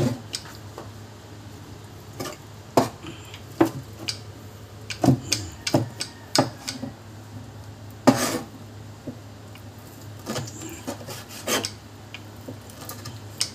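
Large kitchen knife chopping cooked meat on a plastic cutting board: irregular sharp knocks of the blade hitting the board, some coming in quick clusters of two or three.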